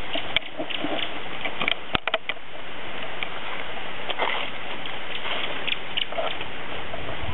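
Steady outdoor hiss of wind and rustling vegetation, broken by scattered light clicks and taps, with a cluster of sharp clicks about two seconds in.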